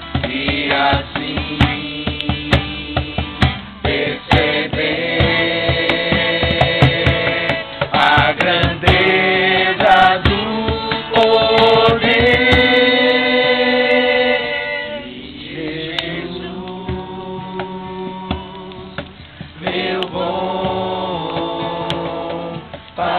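Music: a worship song sung with instrumental accompaniment and a rhythmic beat.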